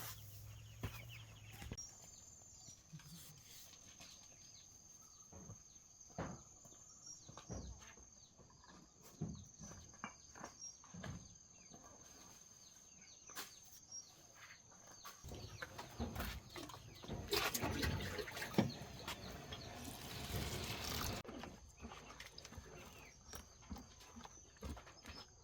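Scattered light clicks and knocks of things being handled, with a louder stretch of rustling about two-thirds of the way through, over a faint steady high-pitched whine.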